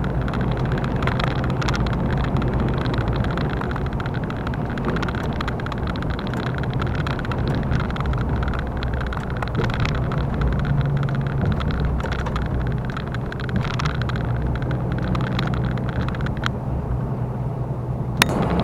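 Steady running of a lorry's diesel engine together with tyre and road noise, heard from inside the cab while cruising on a motorway. A single sharp click comes near the end.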